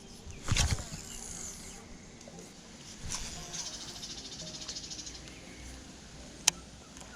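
A cast with a fishing rod and reel: a sudden swish and clatter about half a second in, then a fast, high, finely ticking whir of the reel, with a single sharp click near the end.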